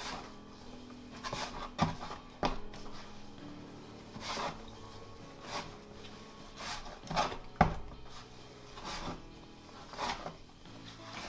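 Bread dough being worked by hand on a wooden board: rubbing, pushing strokes about once a second, with a few sharp slaps of the dough against the board. Faint background music plays underneath.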